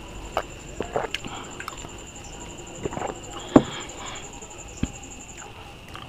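Close-miked eating sounds: small wet mouth clicks and swallowing from a drink of water, then fingers mashing rice and dal on a banana leaf, with one sharp knock about three and a half seconds in.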